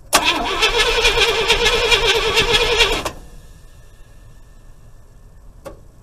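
Starter cranking the IH 345 V8 for about three seconds with an even rhythmic pulse, then cutting off abruptly without the engine firing. It cranks but won't start for lack of spark: the distributor's magnetic pickup is not triggering the ignition control module.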